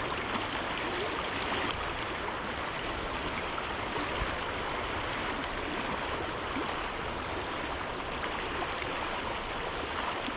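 A creek's flowing water rushing steadily, an even hiss-like wash with no breaks.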